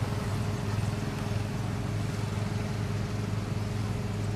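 An engine running steadily, a low even hum with no change in pitch.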